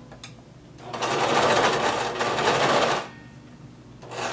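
Electric domestic sewing machine stitching through denim in short runs: it stops at the start, runs for about two seconds, stops, and starts up again near the end.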